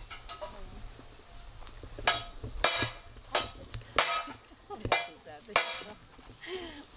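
Metal clanking: about six sharp, ringing strikes, spaced roughly half a second to a second apart.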